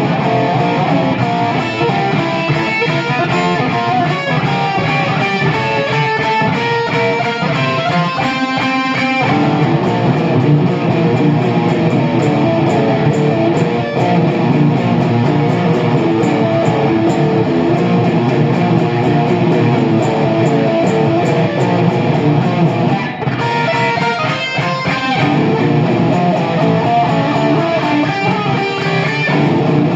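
Guitar music, playing steadily and loud, with a short break about three-quarters of the way through.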